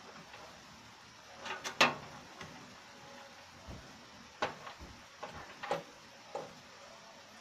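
Sharp clicks and light knocks of cable connectors and metal parts being handled inside a desktop computer case as cables are pulled from the motherboard. The loudest comes in a quick cluster about two seconds in, followed by a few scattered single clicks.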